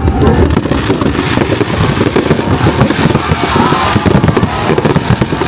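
Aerial fireworks shells bursting in a dense barrage: rapid booms and crackles, one on top of another without a break.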